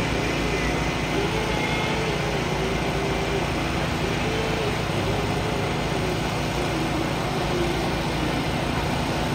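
Steady engine noise that holds at an even level.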